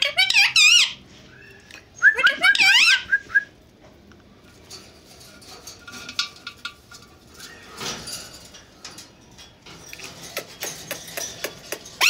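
Indian ringneck parakeet giving two short bursts of high, warbling, squeaky chatter in the first few seconds, then only faint clicks.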